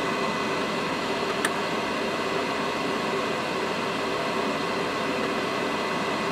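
Cooling fans of running FM broadcast transmitters: a steady whir with a faint steady whine, and a single short click about one and a half seconds in.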